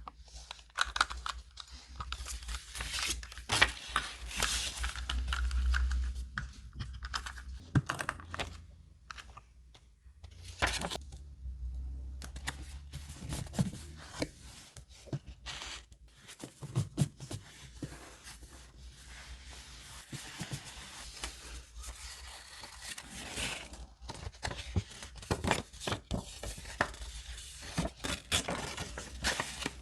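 Paper being handled by hand: rustling, crinkling and tearing, broken by many short sharp clicks and taps.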